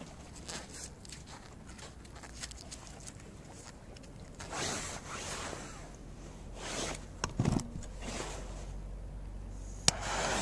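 Rustling and scraping of gloved hands and clothing while handling a firecracker. Near the end, a sharp click as a jet lighter is struck, then the hiss of its flame.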